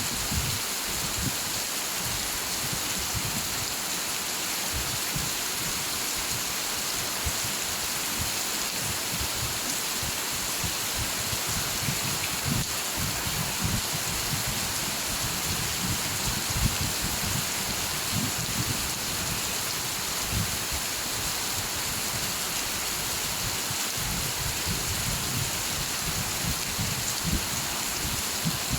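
Steady rain falling as a dense, even hiss, with scattered soft low thuds.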